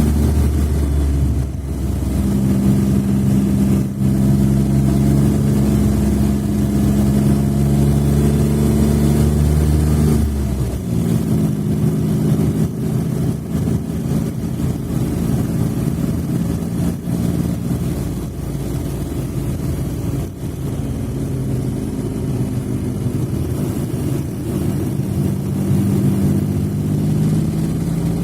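Smart fortwo (451) engine running steadily at raised revs. About ten seconds in it drops to a lower, steady speed, and it begins to rise again near the end.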